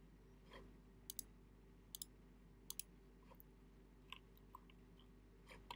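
Near silence broken by about eight faint, sharp clicks, some in quick pairs, from clicking on a computer.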